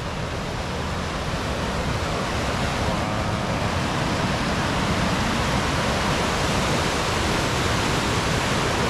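Rushing water of river rapids, a steady roar that gets a little louder over the first few seconds and then holds.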